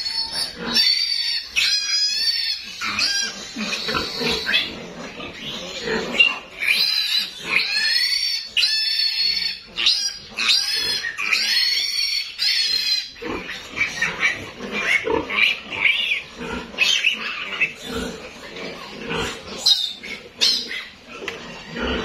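A piglet squealing while it is castrated: three long, high-pitched screams in the first half, then shorter, rougher squeals.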